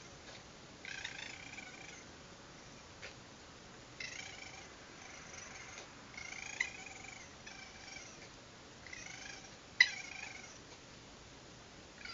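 Raccoons calling in a string of short churring, chittering bursts, each about a second long, heard through a security camera's microphone. A sharp, loud sound comes about ten seconds in.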